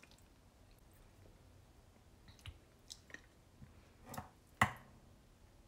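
Scattered light clicks and taps as stuffed grape leaves are fished out of an open metal can and set into a bowl. The loudest is a sharp knock about four and a half seconds in.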